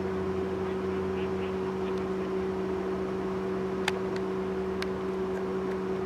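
Steady machine hum at one constant pitch over a low rumble, with a couple of faint clicks a few seconds in.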